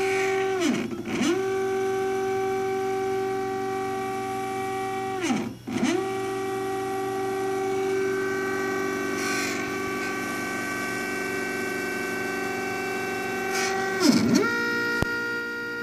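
Stepper motors of a homemade CNC router whining at a steady pitch as the axes run a test pattern of squares. Three times the whine swoops down and back up as the motion slows at a corner, changes direction and speeds up again.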